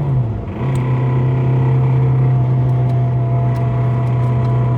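Honda K20A2 four-cylinder engine running: the revs drop and dip just after the start, then hold a steady drone, with a few light clicks. The owner says the engine has developed a rod knock by this point.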